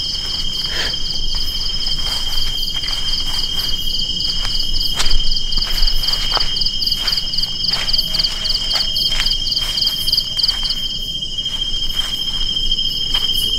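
Tropical insects calling steadily: a continuous high buzz with a fast pulsing trill above it, and the trill stops about eleven seconds in. Occasional light clicks run underneath.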